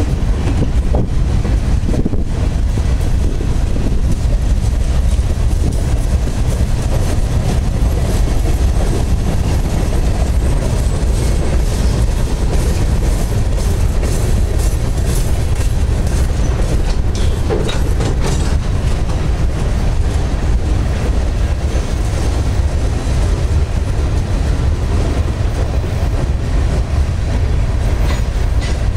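Freight train cars rolling past at close range: a steady low rumble of steel wheels on rail, with some clatter from the wheels.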